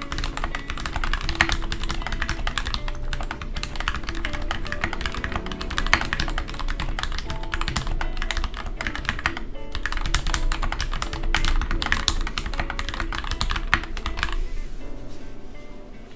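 Fast typing on a GK64 mechanical keyboard with linear Gateron Red switches lubed with Krytox 205g0 and filmed with 0.15 mm films: a rapid, dense run of keystrokes that stops near the end. Background music plays underneath.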